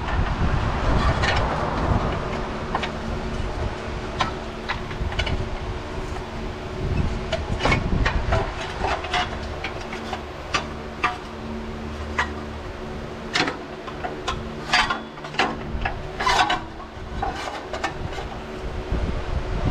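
Irregular clicks, clinks and knocks of hand tools at work on a car, over a steady low hum.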